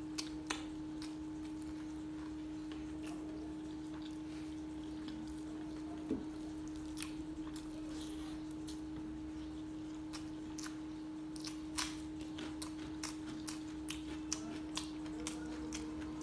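Close-miked mouth sounds of a person eating chicken leg and rice by hand: chewing with scattered wet clicks and smacks, more frequent in the last few seconds. A steady low hum sits underneath.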